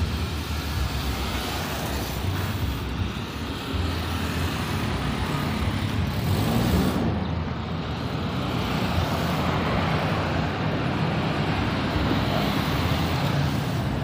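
Steady low rumble with a hiss over it and no distinct events.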